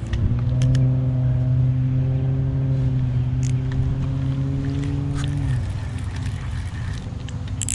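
A motor's steady low hum, holding one pitch for about five seconds, then dropping slightly and stopping. A few light clicks sound over it.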